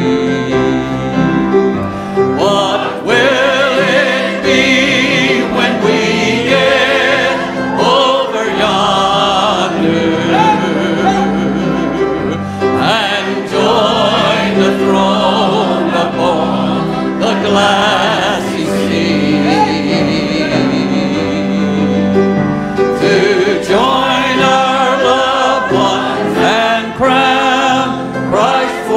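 Church choir singing a gospel hymn.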